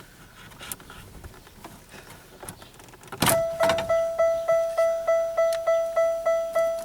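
Faint clicks of parts being handled, then about three seconds in a click and the 1998 Pontiac Bonneville's electronic warning chime starts dinging: one steady tone repeating about two and a half times a second.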